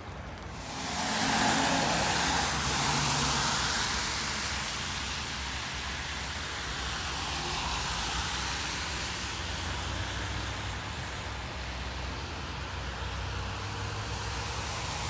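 Road traffic on wet pavement: a vehicle passes with a rising tyre hiss and low engine hum about a second in, then a steady hiss of wet road noise.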